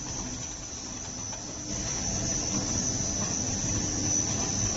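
Brush sanding machine running: a steady machine drone with a constant high-pitched whine over a low hum. It gets a little louder about two seconds in.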